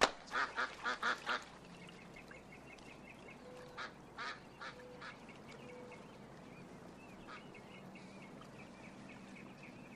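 White domestic ducks quacking on a pond in short runs, loudest in the first second and again about four seconds in.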